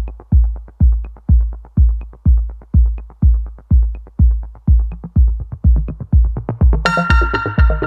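Electronic background music: a heavy bass kick drum about twice a second, joined near the end by a bright synth chord and melody.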